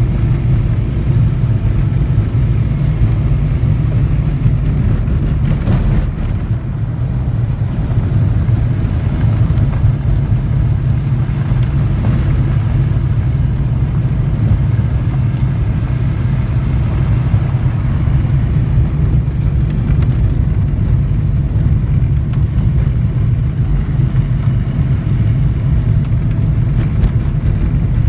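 Car driving on a gravel road, heard from inside the cabin: a steady low engine hum under a constant wash of road and tyre noise.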